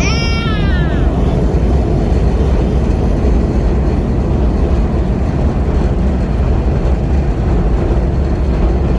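Arrma Felony RC car's high-pitched electric motor whine gliding steeply down in the first second as the car passes, then a steady loud rumbling noise heavy in the lows.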